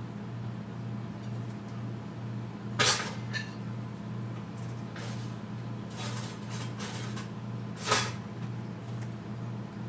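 Kitchen clatter: two sharp knocks, about three seconds and eight seconds in, with lighter clicks and taps between them, over a steady low hum.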